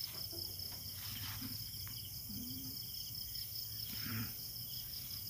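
Night insect chorus of crickets trilling steadily, a fast even pulsing that carries on without a break.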